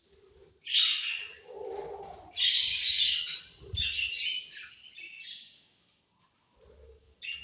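Budgerigars chirping and squawking in a busy run of overlapping calls that dies away for the last second or two.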